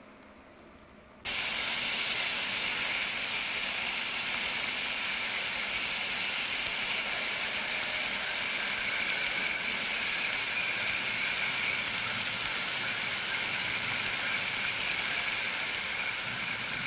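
A loud, steady hissing rush of noise that starts abruptly about a second in and holds unchanged, with no tones or rhythm in it.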